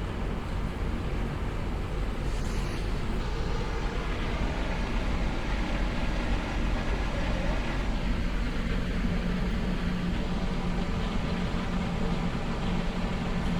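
Steady street traffic noise, with a vehicle engine humming close by in the second half.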